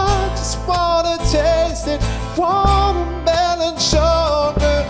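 Live acoustic pop band: a man singing long, wavering held notes over acoustic guitar and plucked double bass, with the bass notes strong and steady underneath.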